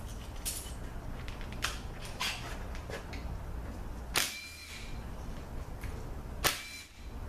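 A ZF5HP24 transmission pump housing being handled on a steel workbench: scattered light metallic clicks and two sharp metal clanks with a brief ring, about four seconds in and again about six and a half seconds in, over a steady low hum.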